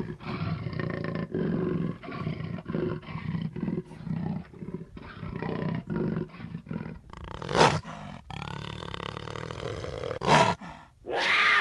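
A big cat calling: a long series of short pulsed calls, two or three a second, for about seven seconds, then two loud short calls and one that falls in pitch near the end.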